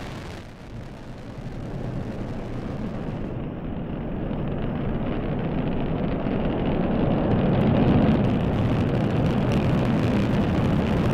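Delta IV Heavy rocket's three liquid-fuelled booster engines at full thrust during liftoff: a deep, steady rumble that builds in loudness over the first several seconds, then holds.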